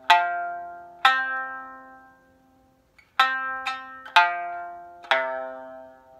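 Okinawan sanshin, freshly skinned with real snakeskin stretched to a high 13-bu tension of about 880 Hz, plucked six times. Each note rings out bright and fades, with a pause after the first two notes.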